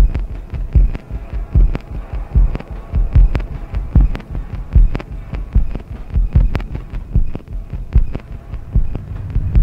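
Electronic soundtrack pulse: a slow, deep, regular thump about every 0.8 seconds, with lighter clicks between the beats. A low steady hum swells in near the end.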